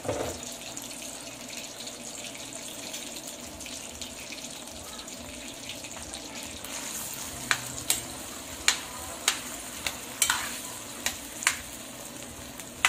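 Diced potatoes deep-frying in hot oil in an aluminium wok, a steady sizzle. From about halfway through, a metal spatula stirs them, clinking against the wok about eight times.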